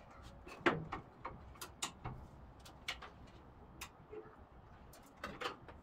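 A series of irregular clicks and knocks, the loudest about two-thirds of a second in and another cluster near the end, as the lifted body of a 1956 Chevy Bel Air is lowered onto its wooden supports.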